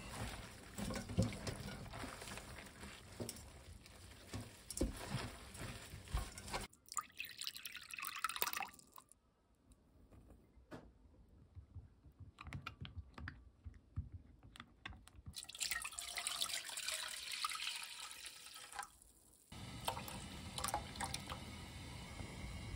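Kitchen cooking sounds: a pan of broth bubbling on a gas stove, then a silicone spatula stirring and scraping glutinous rice flour into water in a glass bowl, then the pan bubbling again with the rice-flour mixture in it.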